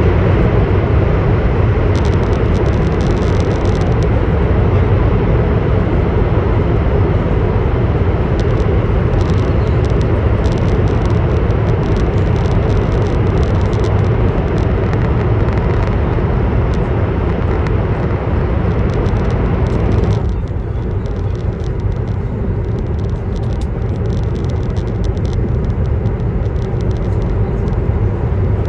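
Steady running noise of a CR400BF Fuxing high-speed electric multiple unit heard from on board: a low rumble under a rushing hiss. About twenty seconds in, the hiss suddenly falls away and the sound turns duller and a little quieter.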